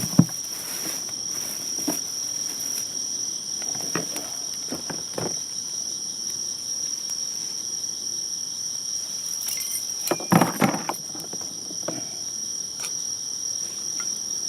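Steady high-pitched insect chorus running throughout, with a sharp click just at the start and a few brief clicks and rustles, clustered about ten seconds in.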